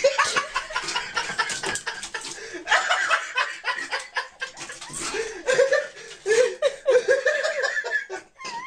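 A person laughing in repeated choppy bursts, loudest in the second half, with scattered sharp knocks and rattles.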